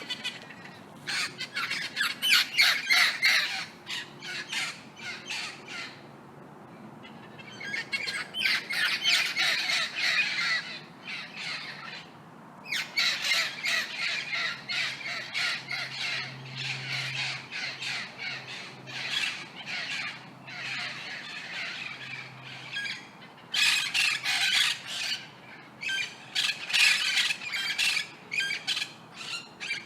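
Several parrots squawking in rapid, harsh calls that come in bouts of a few seconds, with short pauses between.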